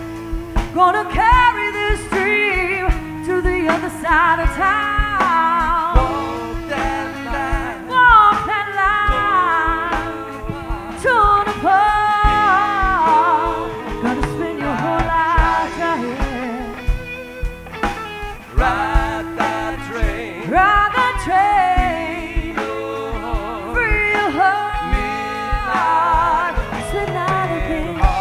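Live blues-rock band music: a woman sings a bluesy lead vocal over electric guitars and drums.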